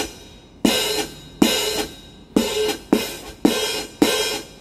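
Hi-hat sample from a Roland Octapad SPD-30 struck by hand six times, about every half second to a second, each hit ringing on briefly like an open hi-hat before fading. The sound's openness is governed by a Hamback hi-hat control pedal set to work as the pad's hi-hat pedal.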